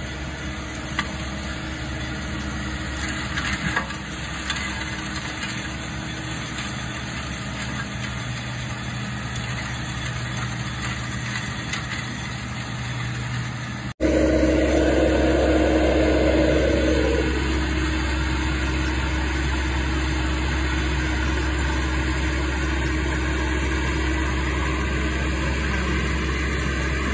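Seppi RC 50 remote-controlled mulcher's 50 hp diesel engine running, with the mulcher head chewing through brush and a few sharp knocks from debris in the first half. About halfway through, after a cut, the engine sound is louder and steadier, with a rushing noise that dies away about three seconds later.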